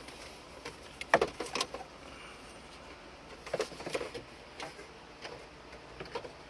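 Light clicks and knocks from handling car interior trim, in two short clusters, about a second in and again about three and a half seconds in, with a few single taps after.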